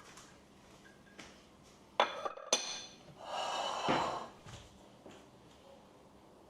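Two sharp, ringing clinks of dishware about two seconds in, half a second apart, followed by about a second of rushing noise.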